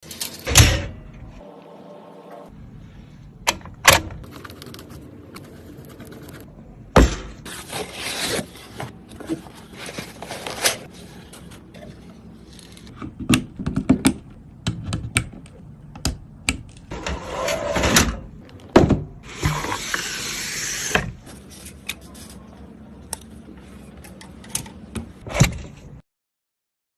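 Scattered knocks, clicks and scraping as hard PC parts and the case are handled during assembly. The sounds are irregular, with a few sharp knocks and longer scraping stretches, and they stop abruptly near the end.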